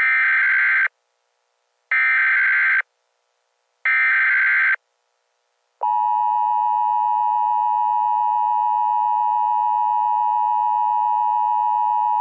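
Emergency Alert System SAME header: three short bursts of screechy digital data tones, each just under a second, about a second apart. About six seconds in, the EAS attention signal starts: a steady, unbroken two-tone alert tone (853 and 960 Hz).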